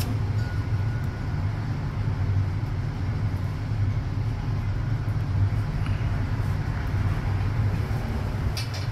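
A steady low rumble throughout, with a few faint ticks near the end.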